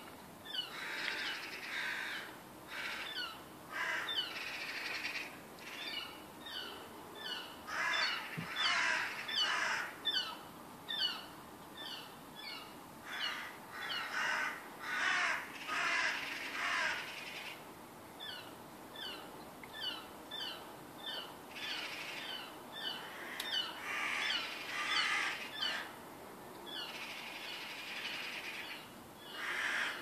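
Many birds calling from a tree: quick series of short, high, falling chirps, broken by louder bursts of harsh, cawing chatter. These are the alarm calls of birds mobbing a cat in the branches.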